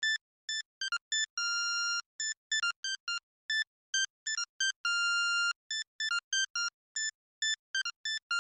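Music: a simple synthesizer melody of short, high beeping notes separated by silences, with two longer held notes about a second and a half in and about five seconds in.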